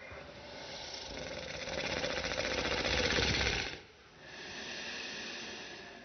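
A man snoring loudly: a long, rattling inward snore that builds for nearly four seconds and then stops abruptly, followed by a softer breath out.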